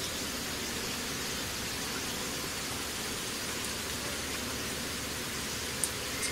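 Steady frying hiss of a paratha cooking in a metal kadai on a gas stove, with a couple of light spatula clicks against the pan near the end.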